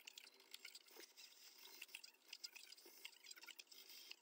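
Faint, irregular small ticks and rustling of a crochet hook working yarn.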